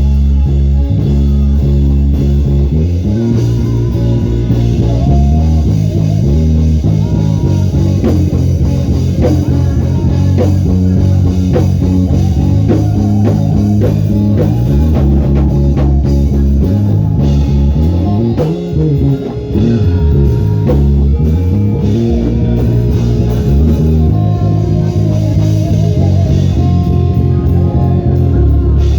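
Band music with a prominent bass guitar over drums and guitar: loud, busy bass lines with pitch slides a few seconds in and again a little past the middle.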